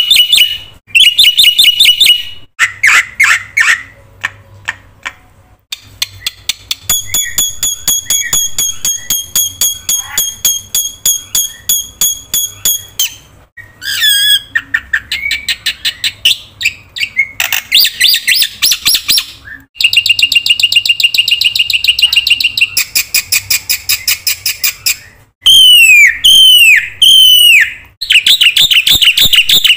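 Black-winged myna (jalak putih) singing a loud, varied song without pause. It runs through fast chattering trills and strings of repeated high notes, and near the end gives three quick falling swoops.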